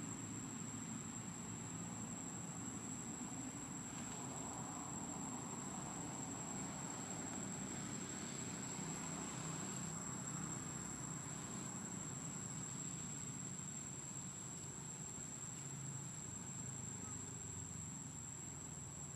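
A steady, high-pitched insect drone that holds one unchanging pitch throughout, over a low background rumble.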